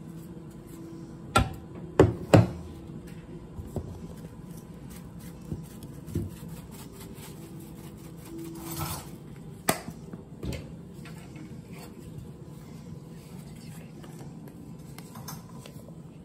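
Plastic spice shaker jars being handled over a kitchen counter: three sharp knocks close together about one and a half to two and a half seconds in, and another near ten seconds, with a few lighter taps and a brief shaking rustle in between. A faint steady hum runs underneath.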